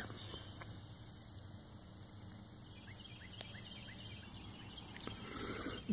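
Quiet outdoor background with a high, thin, steady call about half a second long, heard three times, the last one short, from a small wild animal.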